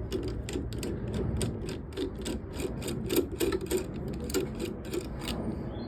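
Socket ratchet clicking in quick, even strokes, about five clicks a second, as a nut is undone.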